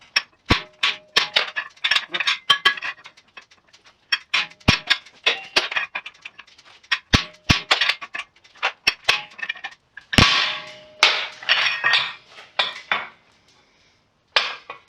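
Hand hammer striking hot steel on an anvil, an irregular run of blows with a short metallic ring after some of them, pausing briefly near the end, as a rounding hammer head is forged.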